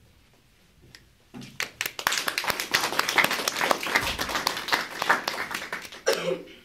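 Small audience applauding, starting about a second and a half in and dying away about six seconds in.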